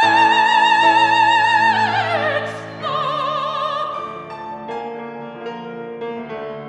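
Operatic mezzo-soprano with piano: she holds a loud high note with wide vibrato, slides down about two seconds in, and sings a last shorter note. Her voice stops about four seconds in, and the piano plays on alone with soft chords.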